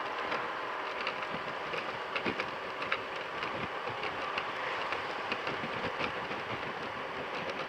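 Honda Silver Wing maxi-scooter riding along: wind rushing over the camera microphone with the engine running steadily underneath, and scattered small ticks and knocks throughout.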